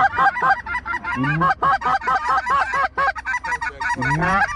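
Geese honking and clucking rapidly, several overlapping calls a second, with a lower rising moan about a second in and again near the end.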